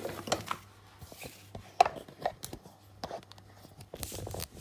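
A paper instruction booklet being picked up, handled and laid down on a kitchen worktop: a few sharp taps and knocks, the loudest about two seconds in, and a rustle of paper near the end.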